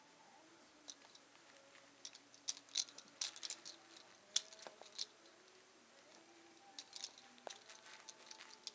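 Quiet, scattered soft clicks, rattles and rustles from a baby kicking on a play-gym mat and handling its plastic toys, in clusters about two to five seconds in and again near the end.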